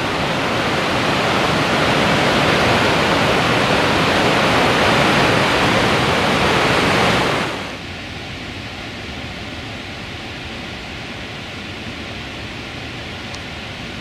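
Lehner Waterfall, a large alpine waterfall, rushing with a heavy, steady noise; about seven and a half seconds in it drops suddenly to a quieter, steady rush.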